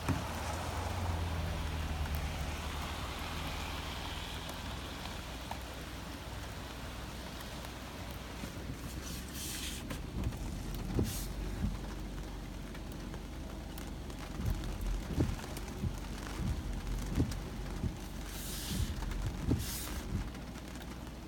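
Steady rain drumming on a car's roof and windshield, heard from inside the car. Scattered dull thumps come through in the second half.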